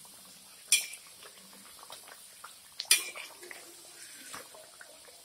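A perforated metal skimmer (jhara) clinking twice against a metal kadhai while deep-frying kachoris are turned over, over the faint steady sizzle of hot oil.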